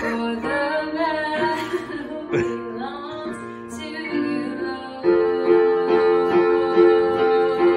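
A woman singing to her own accompaniment on a Casio digital piano. From about five seconds in, a chord is played over and over in an even rhythm.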